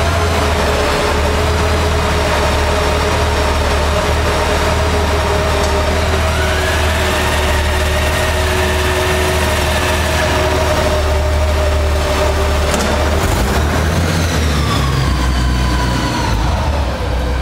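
Honda Gold Wing GL1800's flat-six engine idling steadily, then pulling away near the end.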